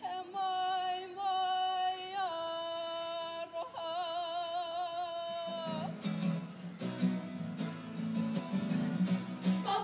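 A solo singer holds long, drawn-out notes with vibrato in a kapa haka waiata. About six seconds in, strummed acoustic guitar comes in under a low sustained backing, and the group's singing swells in at the very end.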